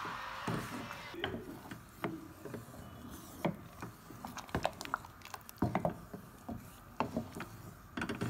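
Wooden spoon stirring soup in a metal saucepan, knocking and scraping irregularly against the pan's sides and bottom as cornflour thickens the soup.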